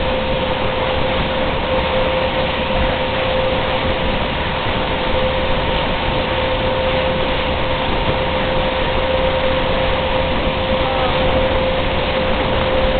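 Motorboat running steadily at towing speed: a constant engine whine under a steady rush of wind and wake water.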